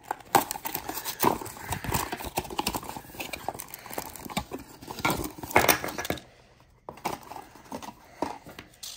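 Cardboard box packaging being handled and opened by hand: flaps folded back and contents pulled out, with irregular taps, scrapes and paper rustling. The handling goes quieter about six seconds in, then resumes briefly.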